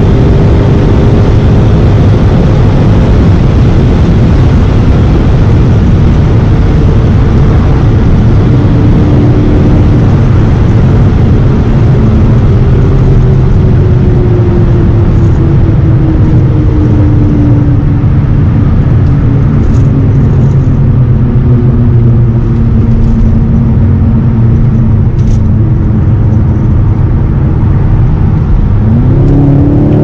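BMW M6 F12's 4.4-litre V8 with Akrapovic exhaust, heard from inside the car at high Autobahn speed under loud, steady wind and road roar. The engine note falls slowly as the car slows from about 245 to 105 km/h. Near the end the revs climb sharply as it accelerates again.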